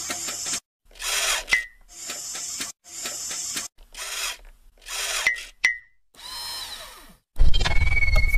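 Animated-intro sound effects: about six short mechanical whirring bursts with brief silences between them, some ending in a click and a short high ping. About seven seconds in comes a deep, loud low impact with a held ringing tone.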